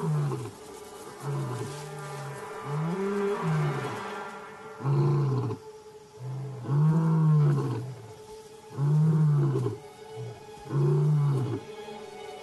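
Adult male lion roaring: a bout of about six deep, grunting roars, each around a second long and coming roughly every two seconds. It is the territorial roar of a resident male warning intruders off its ground.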